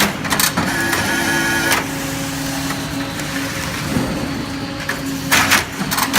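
Hydraulic twin ram baler running: a steady machine hum with a brief higher whine about a second in, and sharp clattering bursts of material being crushed, the loudest near the end.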